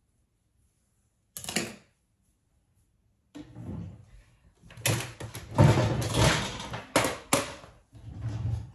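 Handling noise: a short rustle, then a longer stretch of rustling and clattering of things being moved about, with a few sharp knocks.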